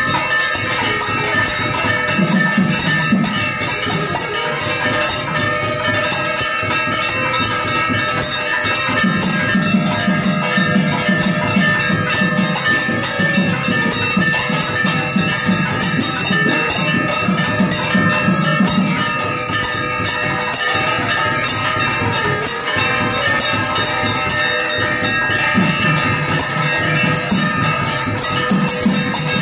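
Temple bells ringing continuously during an arti, many overlapping ringing tones. A low, rapid beat comes and goes in spells of a few seconds.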